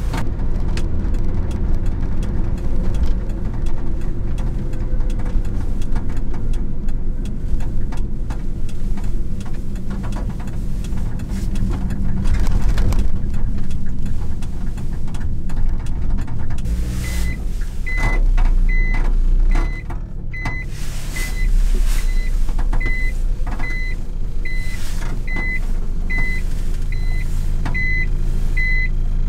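Cabin sound of a light truck driving, with the engine running and road rumble. About halfway through, the truck's reversing warning beeper starts, sounding steadily about one and a half times a second while the truck backs into a parking space.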